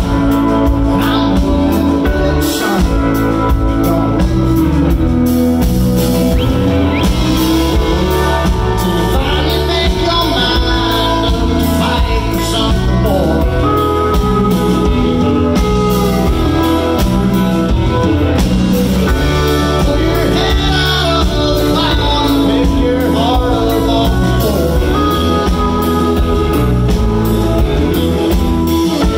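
Live country-rock band playing at full volume: electric guitars, electric bass and a drum kit, with a steady beat and a long held guitar note partway through.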